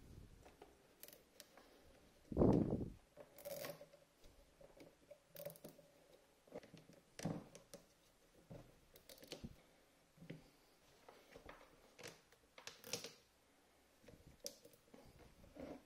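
Handling noise from wires and cable ties being worked around a refrigerator compressor's copper-wound motor stator: scattered light clicks and rustles, with one dull thump about two and a half seconds in.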